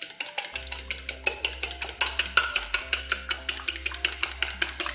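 A fork beating eggs in a bowl: rapid, even clinks of the fork against the bowl, about eight a second. Soft background music plays underneath.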